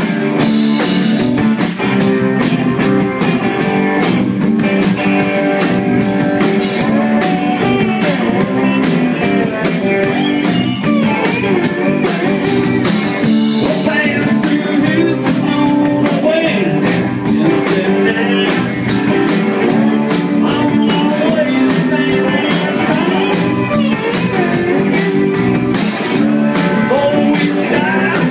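A live rock band playing loudly: electric guitars over a steady drum-kit beat.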